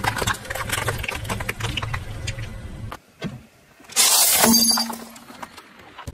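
Car tyre crushing things: a run of wet crackles and pops as cherry tomatoes burst under it, then after a short pause a loud crunching break as a plate heaped with fruit candies is crushed.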